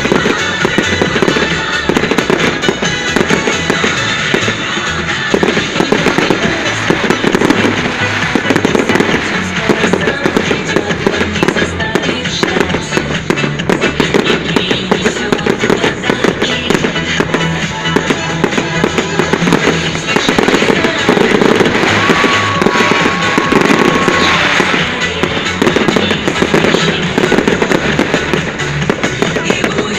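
A fireworks display: a dense, unbroken run of bangs and crackles, with music playing underneath.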